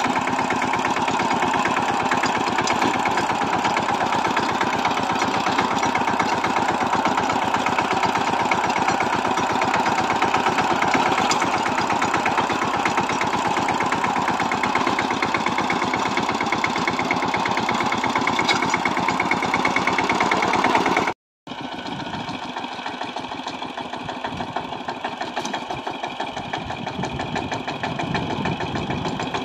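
Kamco walk-behind power tiller's single-cylinder diesel engine running steadily with a fast firing beat as it drives the rotary tiller over the field. About 21 seconds in the sound breaks off for a moment and comes back quieter.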